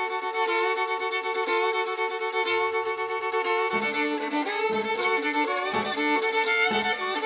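Violin and piano duet: the violin holds long bowed notes, and the piano comes in beneath with chords several times in the second half.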